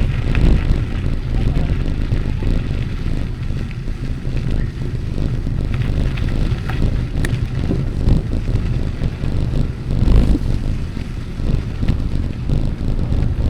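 Wind buffeting the microphone of a moving rider's camera: a steady low rumble, a little louder about ten seconds in.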